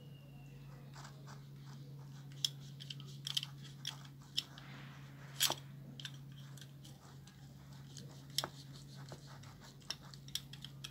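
Utility knife blade cutting through a fairy castle cactus (Acanthocereus tetragonus) stem: irregular crunching clicks as the blade works through the fleshy ribs, over a steady low hum.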